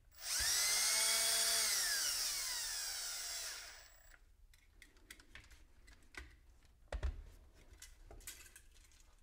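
Cordless drill driving a small screw with a washer down onto bare copper wire in a pine board: the motor whine holds steady for about a second and a half, then falls in pitch as it slows and stops after about three and a half seconds. Light clicks and a few short knocks from handling the wire follow, the loudest about seven seconds in.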